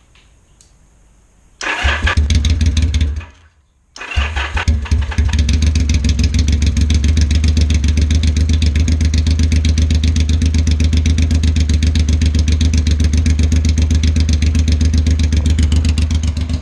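1980 Yamaha XS850's air-cooled inline-three engine, running on straight open headers with no muffler: it fires about a second and a half in, runs briefly and dies, then restarts about four seconds in and settles into a loud, steady, evenly pulsing idle.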